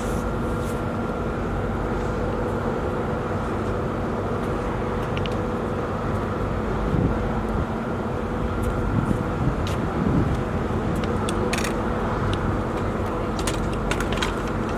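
A steady engine running with a constant hum, a few light clicks and taps scattered over it.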